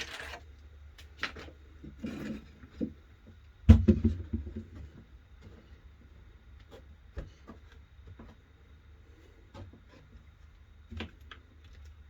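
Scattered knocks, taps and clicks of wooden pieces being handled and set down during glue-up, with one loud thud about four seconds in.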